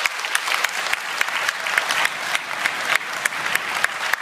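Audience applauding, with one person's claps close by standing out as sharp, regular smacks above the rest.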